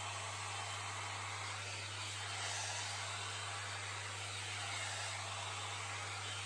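Jomarto hot-air dryer and volumizer brush running steadily while drying hair, an even rush of blown air over a low steady hum.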